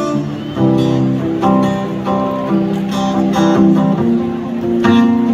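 Solo acoustic guitar played live through a concert PA and heard from the audience, strummed and picked chords with a fresh attack about once a second.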